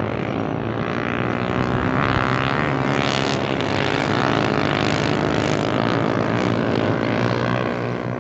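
Honda Verza 150's single-cylinder engine running steadily on freshly changed oil.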